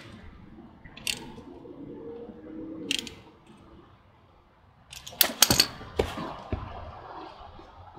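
Sharp metallic clicks and clanks of hand tools worked at a motorcycle's oil drain bolt: single clicks about one and three seconds in, then a louder cluster of clanks about five seconds in.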